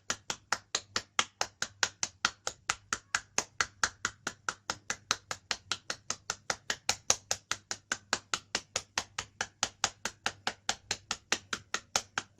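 Rapid, even tapping on a patient's body at a pressure point during totok (nerve-point) treatment, about four to five crisp strikes a second at a steady pace.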